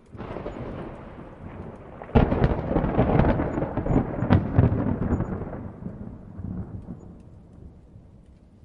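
A thunderclap: a rumble begins suddenly, a loud crack comes about two seconds in, then crackling rumble that slowly dies away over several seconds. Rain falls faintly beneath it.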